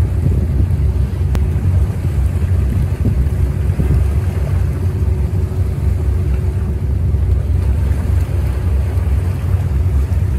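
Squid-fishing boats' engines running steadily as the boats pass close by at speed, with a faint steady engine drone under a heavy low rumble of wind on the microphone and choppy sea.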